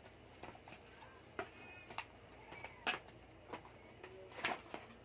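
Cardboard box and plastic packaging handled while unpacking a phone's accessories: irregular rustles and sharp clicks, the loudest about three seconds in and again about four and a half seconds in.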